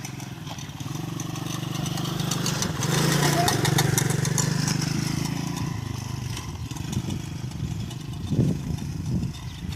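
ATV (quad bike) engine running, getting louder about three seconds in and then easing off again.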